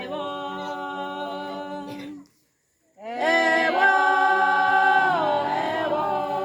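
A group of women singing a church praise song a cappella, in unison on long held notes. The line stops about two seconds in, and after a short breath a new phrase starts, full and sustained, with the pitch sliding down to lower notes near the end.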